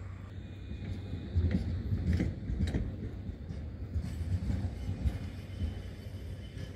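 Tram rolling over rail joints and points, its wheels giving a few sharp clacks between about one and a half and three seconds in, over a steady low hum.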